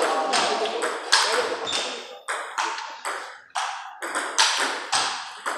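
Table tennis rally: the ball clicking sharply off the table and the paddles, a few hits a second in quick, irregular alternation.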